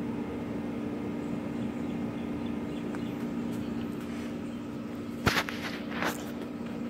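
A steady low hum, with a few sharp clicks or knocks about five and six seconds in.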